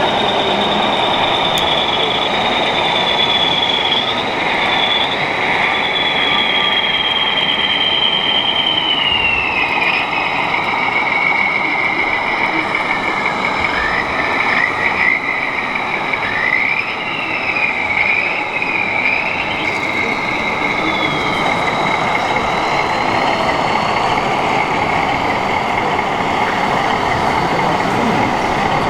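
Electric drive motors and gearboxes of radio-controlled scale model tractors whining over a steady rushing noise, the high whine sliding down and up in pitch as the models change speed.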